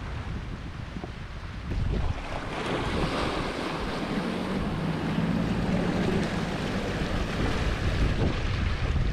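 Wind buffeting the microphone over the rush of breaking waves and foaming wake along a sailboat moving fast through rough open ocean. It grows louder about two seconds in.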